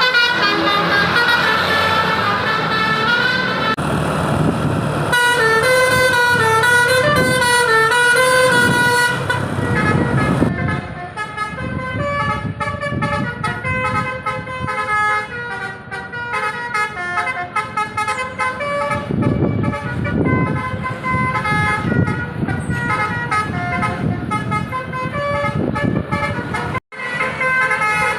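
Seven-trumpet telolet bus air horn playing a tune, its loud notes stepping up and down in pitch, with a short break near the end.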